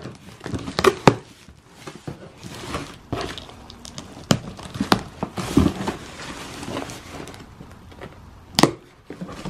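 A cardboard mailing box being cut open along its taped seams with a small knife, the flaps handled and pushed about: scattered sharp knocks and short scraping, cutting sounds, the sharpest knocks about a second in and near the end.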